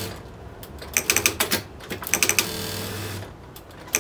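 Juki computerized industrial lockstitch sewing machine stitching in two short runs of rapid needle clatter, about a second in and again about two seconds in, with a low motor hum between them.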